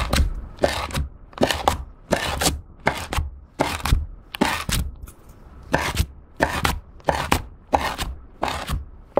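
A white ceramic knife blade pressed edge-down again and again into a thick disc of glittery clear slime, pressing grooves into it. There are about a dozen short sounds, roughly one every two-thirds of a second, with a brief pause near the middle.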